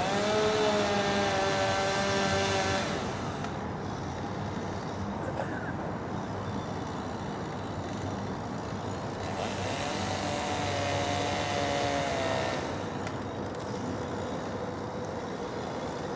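Chainsaw revving up and running at high revs for about three seconds, twice, with a steady running hum between.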